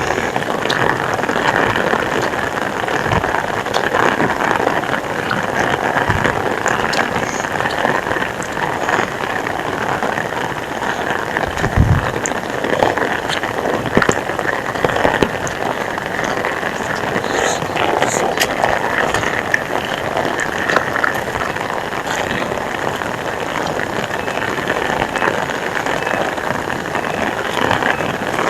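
Heavy rain falling steadily, a dense patter of drops on surfaces. A brief low thump about halfway through.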